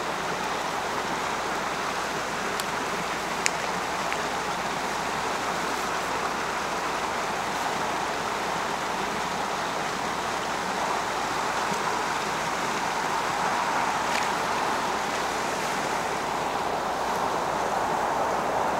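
Steady rush of river water running through a rapid, with one sharp click about three and a half seconds in.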